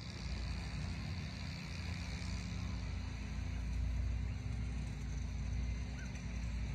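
Steady low rumble of outdoor background noise with a faint hiss above it, swelling slightly midway through.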